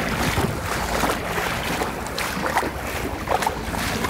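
A person wading through shin- to knee-deep floodwater, the water sloshing and splashing irregularly around the legs with each step, with wind rumbling on the microphone.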